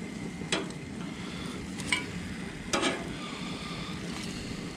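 Metal tongs clacking on a gas grill's grate and a glass baking dish as grilled octopus tentacles are moved across, three sharp clacks spread over the few seconds. Under them the grill hisses and sizzles steadily.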